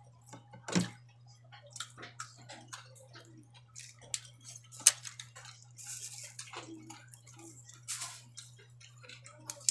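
Close-miked eating sounds: chewing, wet mouth clicks and smacks, with a sharper click just under a second in and another about five seconds in. A steady low hum runs underneath.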